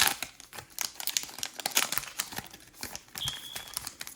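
Crinkling and clicking of a foil Pokémon booster pack wrapper and trading cards being handled, thinning out toward the end. A brief high tone sounds about three seconds in.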